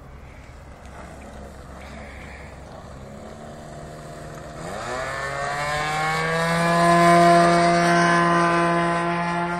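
O.S. Max .75 glow engine of a Great Planes Revolver RC model airplane, running quietly at low throttle, then opened up about five seconds in. Its pitch climbs quickly to a steady high full-throttle whine for the takeoff roll, loudest around seven seconds in.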